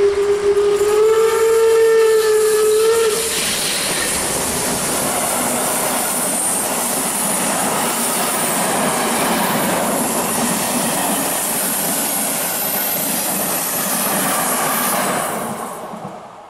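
Steam locomotive sounding its whistle, one steady tone held for about three seconds. Then the steady noise of the locomotive and its coaches running past, fading near the end.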